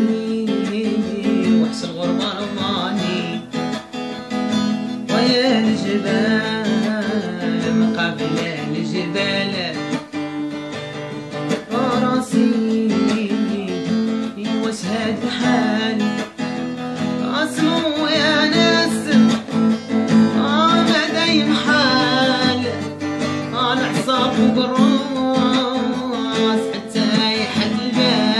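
Acoustic guitar played with strummed and picked chords, accompanying a man singing an Arabic song in ornamented, wavering phrases, with gaps where the guitar carries on alone.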